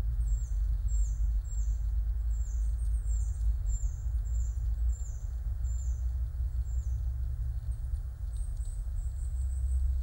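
A small bird calling a short, high note that drops in pitch, about two a second, with a second high series near the end, over a steady low rumble.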